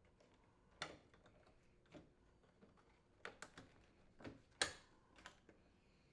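Faint, scattered clicks and light knocks as a dishwasher's outer door panel is fitted back onto the door and aligned on the control panel. There are about eight in all, the loudest a little after four and a half seconds in.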